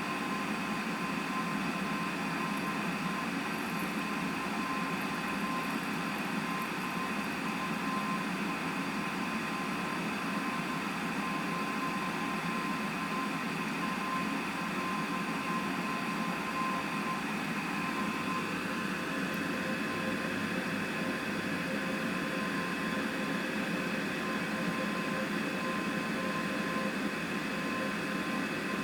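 Small fan of a solder fume extractor with a charcoal filter running steadily: an even whir with a thin steady tone over it.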